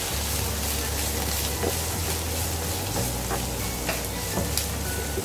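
Diced onions sizzling in hot oil in a nonstick frying pan as they are sautéed. A slotted spoon stirs them, with a few short scrapes against the pan.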